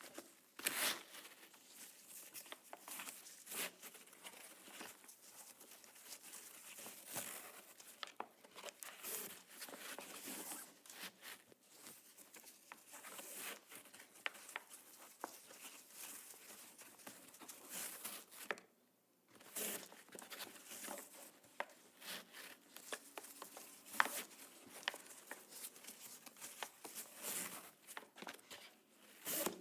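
A shoelace being tied on a boot: irregular rustling, scraping and quick swishes of the lace rubbing against itself and the boot as it is pulled and knotted, with a short pause a little past halfway.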